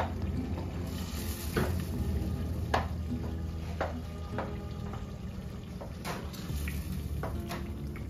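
Wooden spoon stirring and crushing whole peeled tomatoes in hot olive oil in a stainless steel pot, with irregular knocks of the spoon against the pot over a faint sizzle.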